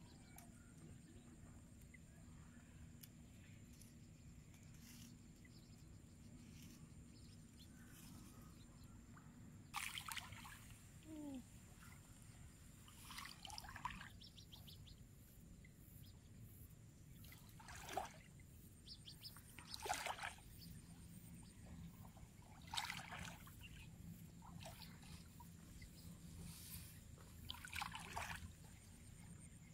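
Splashing in shallow, muddy rice-paddy water, a fish thrashing at the surface: short splashes every few seconds, starting about ten seconds in.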